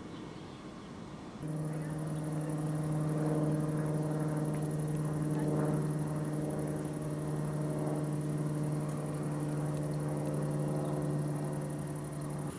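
Small single-engine propeller aircraft flying overhead: a steady engine drone made of a low hum and several higher tones. It starts abruptly about a second and a half in and cuts off just before the end.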